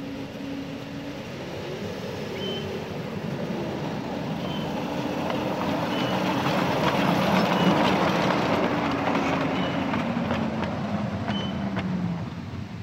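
Miniature railway train running past: the locomotive's motor hum and the wheel noise on the rails grow louder to a peak about two-thirds of the way in, then ease off.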